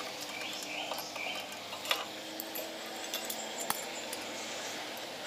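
A few sharp, spaced-out metallic clicks as a wrench and socket on a bearing puller knock against the aluminium crankcase cover of a Honda GX390 engine.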